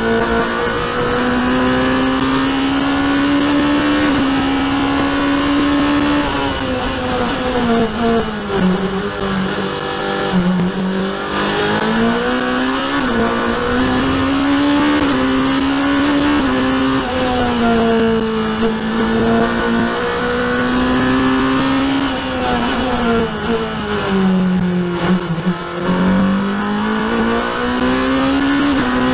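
Race car engine heard from the open cockpit at racing speed. It climbs in pitch along the straights and drops as the car slows and changes down for corners about a third of the way in and again near the end, then climbs again under power.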